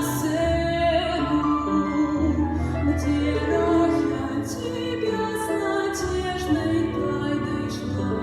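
Music: a woman singing a melody in long held notes over instrumental accompaniment with a steady bass.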